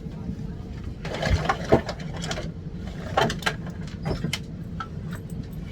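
Airliner cabin: a steady engine hum with several short bursts of mechanical clattering and clicking, about a second in, around three seconds and again near four seconds.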